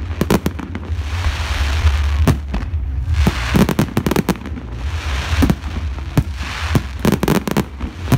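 Fireworks display: aerial shells bursting in quick runs of sharp bangs, with stretches of hissing crackle from the bursting stars between them. A steady low rumble runs underneath.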